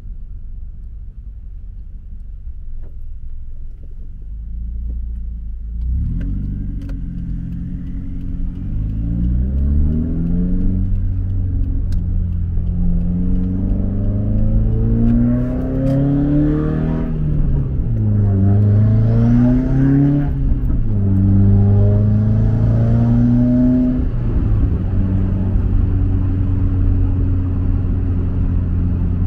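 Subaru WRX's turbocharged flat-four, with a Tomei cat-back exhaust and Invidia downpipe, heard from inside the cabin. It idles low for about six seconds, then accelerates away, its pitch climbing through several gears and dropping at each shift, and settles to a steady cruise near the end.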